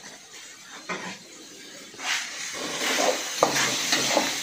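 Stir-fry sizzling in a wok on a gas burner, louder from about halfway through, with a metal spatula stirring and knocking against the pan, one sharp knock near the end.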